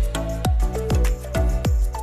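Background music with a steady beat: deep drum hits, each dropping in pitch, about twice a second under a short repeating melody.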